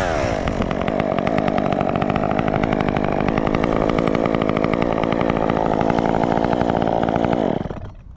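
Stihl top-handle chainsaw's small two-stroke engine coming off full throttle, its revs falling away right at the start. It then idles steadily for about seven seconds before stopping near the end.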